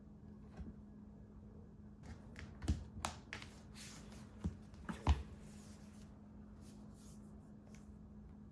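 Handling sounds: a cluster of sharp clicks and knocks with rustling, from about two seconds in until about six seconds in, over a faint steady hum.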